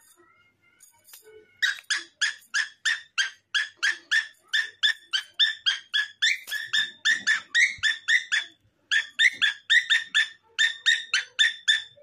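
A pet parrot calling a rapid run of short, sharp repeated notes at a steady pitch, about four a second. The run starts about a second and a half in and has a brief break near three-quarters of the way through.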